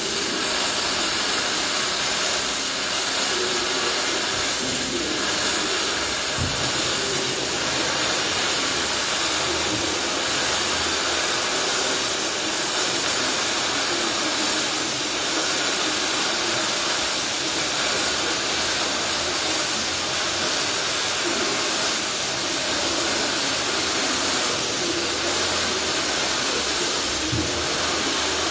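MIG welding arc running a continuous weld along a steel I-beam, a steady hiss that carries on without a break.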